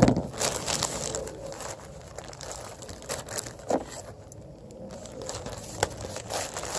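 Plastic wrapping crinkling and crackling in irregular bursts as it is handled and pulled open, loudest at the start, with a few sharp snaps later.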